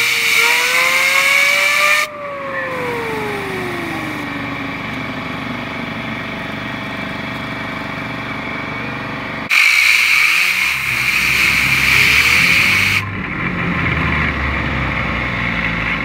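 Compressed air from a blow gun spinning a fidget spinner up: a loud air hiss with the spinner's whine rising in pitch. The air cuts off about two seconds in and the whine falls steadily as the spinner slows. A second blast of air, with the whine rising again, starts about nine and a half seconds in and stops suddenly some three and a half seconds later.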